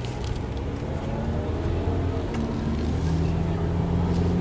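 Car driving, with engine and road noise; the engine tone steps up and grows louder about three seconds in as the car speeds up.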